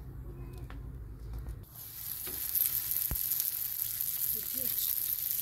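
Triangular piece of dough frying in shallow oil in a cast-iron pan, a steady sizzle that starts suddenly about a third of the way in. Before it there is a low hum with a few clicks, and a single sharp knock comes near the middle.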